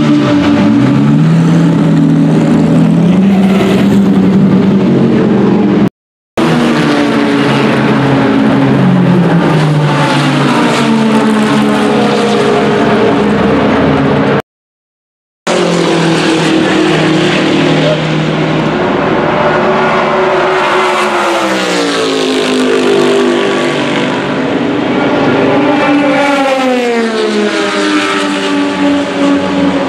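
Race car engines running and revving up close, then race cars passing at speed with long rises and drops in engine pitch. The sound is broken twice by brief cuts to silence.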